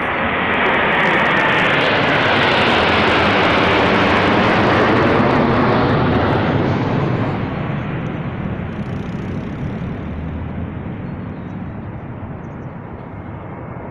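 Jet engines of a low formation of military jet fighters flying over. The roar builds, holds loudest for several seconds, then fades from about seven seconds in as the formation passes.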